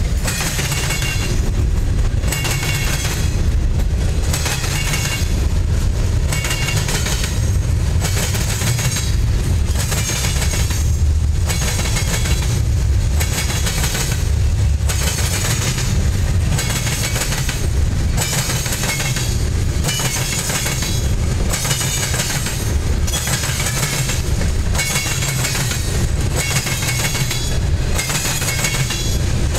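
Freight cars of a CSX train rolling past close by over a diamond crossing: a steady low rumble with a regular clickety-clack every second or two as the wheels strike the crossing and rail joints.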